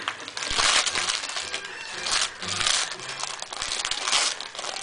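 Christmas wrapping paper crinkling and tearing in irregular bursts as a small dog rips open a wrapped present, the loudest burst about half a second in.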